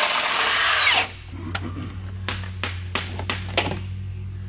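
Cordless impact wrench hammering on a bolt for about a second, its whine falling away as it stops, while loosening bolts on a Cummins N14 diesel engine being removed. Then a few separate metal clicks and knocks from the socket and extension, over a steady low hum.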